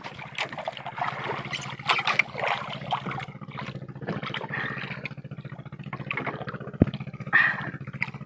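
Steady low drone of a boat engine running in the distance, with water lapping and scattered small knocks and splashes around a small wooden outrigger boat. There is one sharper knock near the end.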